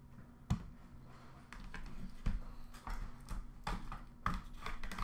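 Trading cards and hard plastic card holders being handled and set down on a glass countertop: a run of light clicks and knocks, with sharper knocks about half a second in, a little past two seconds and a little past four seconds.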